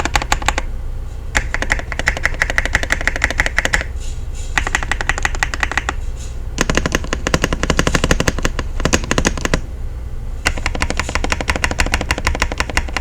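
The stabilized keys of a KZZI K75 Lite gasket-mounted mechanical keyboard are being tapped rapidly in about five runs of fast clacking with short pauses between them, the runs differing in tone from key to key. This is a stabilizer sound test, and the stabilizers are sounding good right out of the box.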